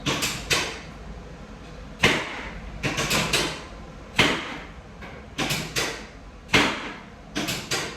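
Chiropractic drop table: a section snaps down with a sharp, loud clack about every two seconds, three times, with clusters of lighter clicks between the drops.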